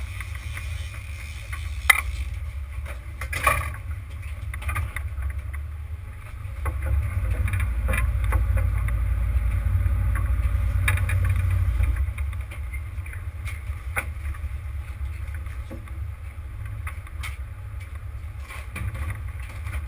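Steady low rumble of a Luhrs sportfishing boat running, with wind and water noise; the rumble swells between about 7 and 12 seconds in. Sharp knocks and clatters on board come every few seconds.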